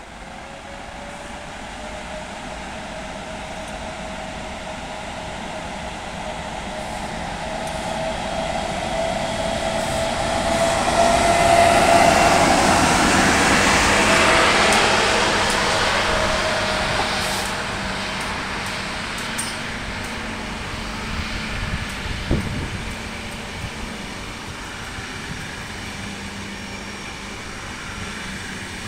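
Electric locomotive hauling a passenger train of railjet coaches past, with a steady whine from the locomotive that swells as it passes and fades away. The rumble of the wheels is loudest about halfway through, then the coaches keep rolling by with a sharp clack about two-thirds of the way in.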